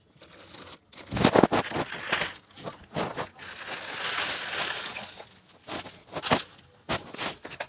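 A thin plastic bag being handled and rummaged in, crinkling and rustling, with a few small knocks near the end.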